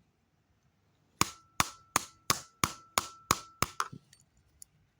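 A metal spanner hammered repeatedly on a remote control: about nine sharp blows in quick succession, roughly three a second, starting about a second in, each with a short metallic ring.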